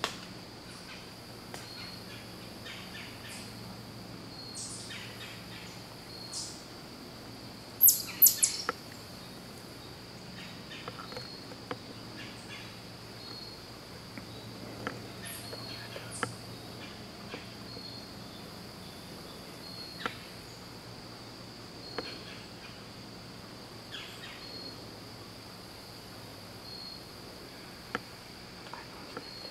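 Summer woodland ambience: a steady, evenly pulsing insect chorus with scattered bird chirps and faint ticks, and a brief cluster of sharp high chirps about eight seconds in.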